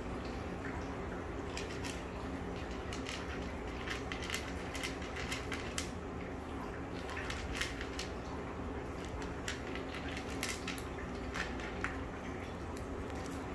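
A cat eating from a plastic dish: irregular small wet chewing clicks and crunches, a few each second, over a steady low background hum.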